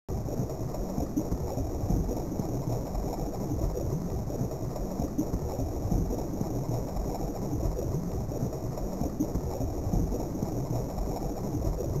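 A steady, low rumbling noise from the Amiga demo's soundtrack, starting suddenly out of silence. It is an ambient, noise-like effect with no clear tune or beat.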